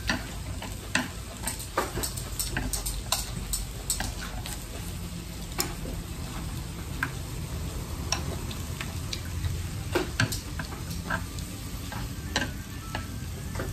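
Beef-wrapped enoki mushroom rolls sizzling steadily on a tabletop electric grill plate, with scattered sharp clicks of chopsticks and utensils against the plate and dishes.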